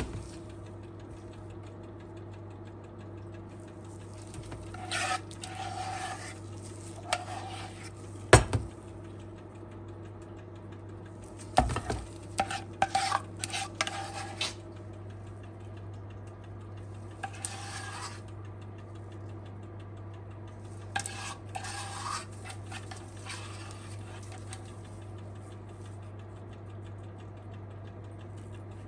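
Kitchen utensils clinking and scraping against dishes and pans in scattered bursts, with one sharp knock, over a steady low hum.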